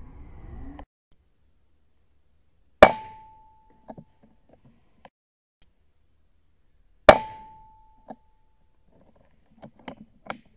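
Two sharp air rifle shots about four seconds apart, each with a brief ringing tone as it dies away and a faint click about a second after. Several small mechanical clicks and knocks near the end.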